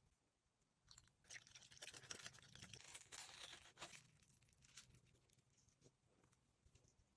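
Faint crackling and rustling handling sounds in food preparation, densest for a few seconds about a second in, then thinning to scattered light clicks.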